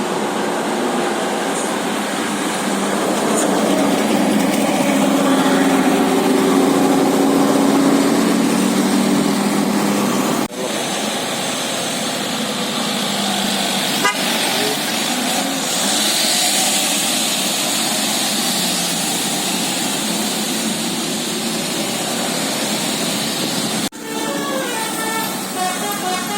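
Bus telolet musical air horn (basuri type) sounding several tones together over the noise of road traffic, breaking off abruptly about ten seconds in and again near the end.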